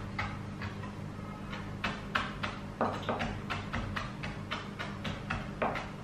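Chef's knife finely slicing kaffir lime leaves on a plastic cutting board: a steady run of quick taps, about three a second, slightly irregular.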